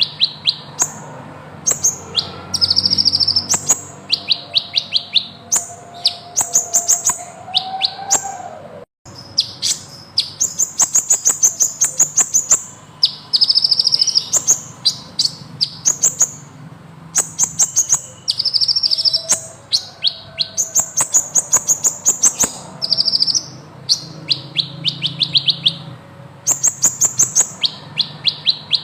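A kolibri ninja sunbird singing long, rapid trills of very high, thin notes, phrase after phrase with short gaps. A faint low hum runs underneath, and the sound cuts out for an instant about nine seconds in.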